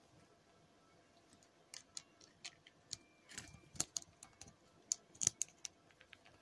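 Faint, irregular small plastic clicks and taps as LEGO minifigures are handled and pressed onto the studs of a LEGO plate. The clicks begin a little under two seconds in, with a few sharper snaps among them.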